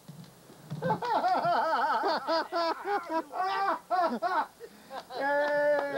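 A person laughing in a quick run of high-pitched bursts, then a long drawn-out call of "Hey" near the end.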